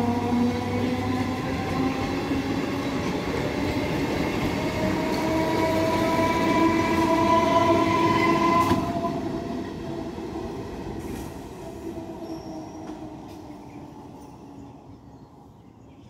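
Electric multiple-unit local train pulling out and accelerating past: its traction motors whine in several tones that rise together, over the noise of the wheels on the rails. About nine seconds in the last coach passes, and the sound fades steadily away.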